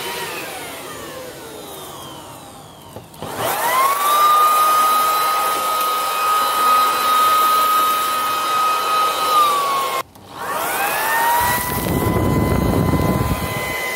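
Sun Joe SBJ601E electric leaf blower, driving air through a gutter-cleaning tube extension. Its motor whine winds down, then starts up again about three seconds in, rising fast to a steady high whine. It cuts off briefly at about ten seconds and is switched straight back on, spinning up to a steady whine again.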